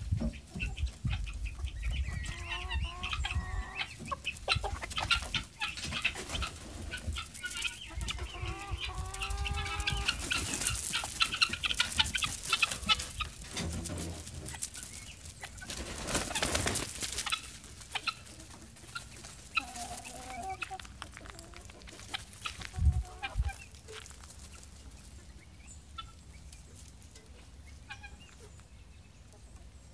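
Chickens clucking, with several drawn-out calls in the first ten seconds and rustling noise around the middle; it grows quieter in the last third.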